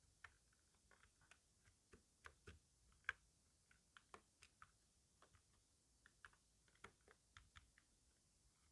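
Typing on a computer keyboard: faint, irregular key clicks, several a second, with one sharper keystroke about three seconds in.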